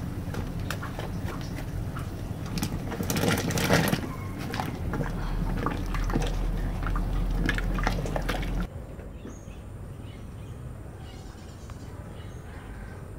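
Chunks of taro tipped into a pot of simmering duck broth, splashing and plopping, with a metal ladle stirring and knocking against the pot; the splashing is loudest around three to four seconds in. The sound cuts off suddenly about two-thirds of the way through, leaving only a faint background.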